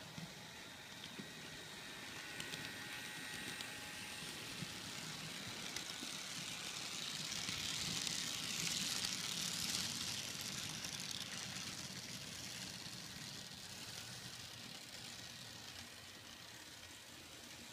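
N scale model train rolling along the track: a faint whirring hiss of wheels and motor that grows as the train passes close, about eight to ten seconds in, then fades as it moves away, with a few light clicks.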